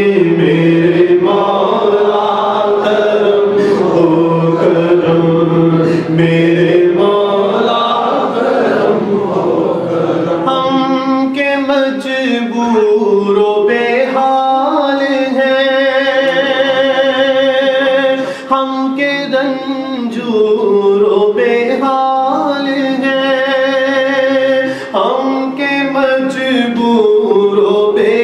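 A man chanting an Urdu devotional kalaam (naat) into a handheld microphone, holding long, drawn-out notes. About ten seconds in his pitch rises and the held notes take on a strong wavering vibrato.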